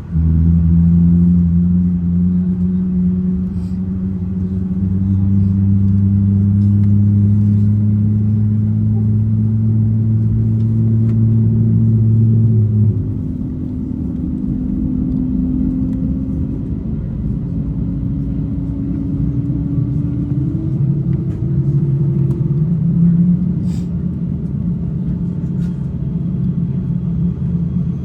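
Steady low droning of an Airbus A350-900's machinery heard inside the cabin, several low hum tones over a rumble. The tones shift and the level drops about halfway through.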